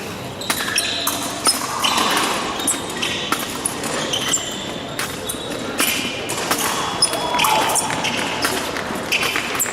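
Épée fencing bout on the piste: irregular sharp stamps and clicks from footwork and blades, with short squeaks of shoes, echoing in a large hall.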